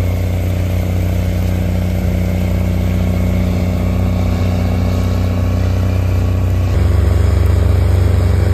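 Big Bud 525/50 tractor's diesel engine running steadily under load while pulling a moldboard plow, a deep, even drone. It gets a little louder about two-thirds of the way through.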